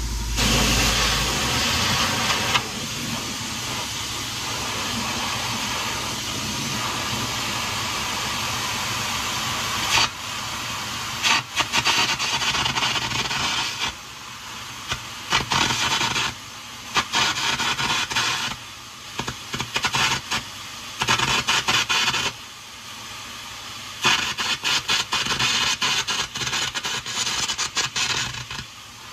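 Air carbon arc gouging torch gouging out the weld on a broken tri-axle trunnion: a loud, hissing rush of compressed air and arc. It runs steadily for about the first third, then goes on in stop-start bursts with short breaks.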